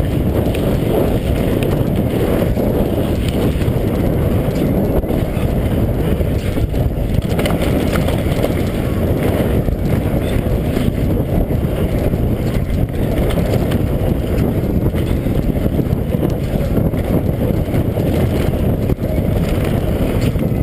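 Continuous wind rush on a mountain biker's helmet camera microphone, mixed with the rumble of knobby tyres over a dirt trail, with occasional knocks from the bike over bumps.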